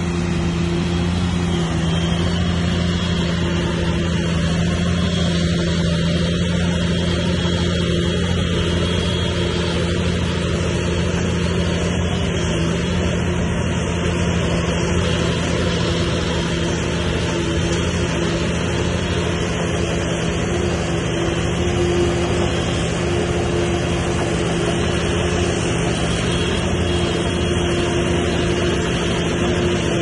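Bulldozer's diesel engine running at a steady speed, a continuous loud drone that holds without revving up or down.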